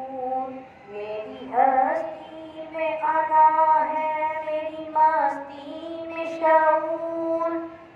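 A boy singing a patriotic Urdu song solo, holding long notes and sliding up into them in a melismatic style.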